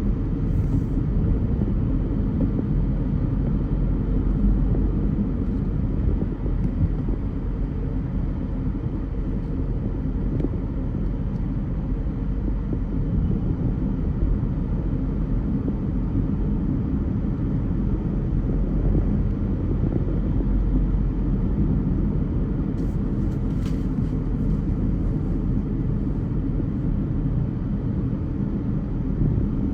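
Car driving in traffic: a steady low rumble of engine and tyre noise, with a couple of faint light ticks.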